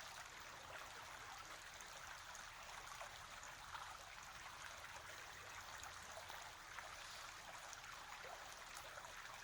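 Near silence: a faint, steady hiss of background room tone.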